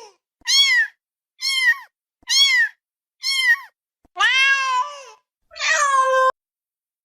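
Ocelot meowing: six high meows that rise and fall. The first four are short and come about a second apart, then two longer ones follow, the last cut off abruptly.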